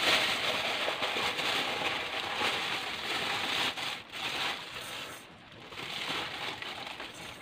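Uncooked rice grains pouring from a plastic bag into a metal pot, pattering into the pot as the bag crinkles. The pour thins out about five seconds in, then picks up again.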